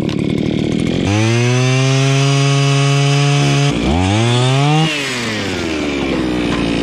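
Gas-powered ice auger running hard as it bores through the ice, its engine holding a steady note. About four seconds in the pitch dips and climbs again, then falls away slowly as the engine winds down near the end.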